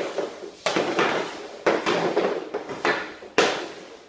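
Hockey shots with an Easton V9E composite stick: about five sharp cracks, roughly one a second, as the blade strikes pucks off a plastic shooting surface and the pucks hit the backstop. Each crack has a short ringing tail.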